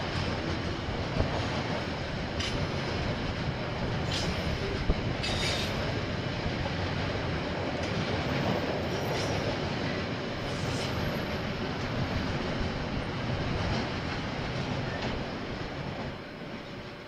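KiwiRail train rolling past on the track: a steady rumble of wagons on the rails, with a few brief high squeals from the wheels. It dies away near the end as the train moves off.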